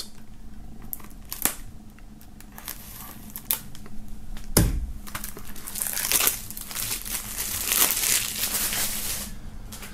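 Plastic shrink-wrap film being peeled off a CD jewel case and crinkling, loudest in the second half. A few light clicks and one knock come about one and a half and four and a half seconds in.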